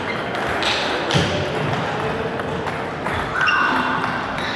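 Table tennis ball clicking off bats and the table during a rally: a few sharp clicks at uneven gaps, ringing in a large hall.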